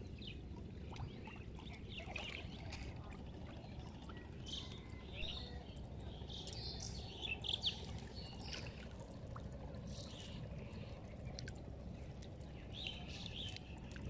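Small splashes and trickles of shallow river water as a wading fisherman handles a wet cast net, with scattered brief splashes over a steady low background rumble.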